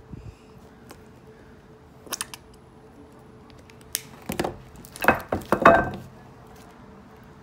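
Tabletop handling sounds of glass pie dishes and small paint bottles: a few light clinks and taps about two and four seconds in, then a louder, rougher cluster of noise between about five and six seconds.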